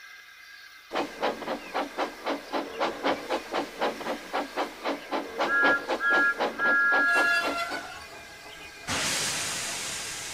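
Steam locomotive sound effects: steady chuffing at about four beats a second starting about a second in, a two-note whistle tooting twice briefly and then once longer in the middle, then a loud burst of escaping steam hiss near the end that slowly fades.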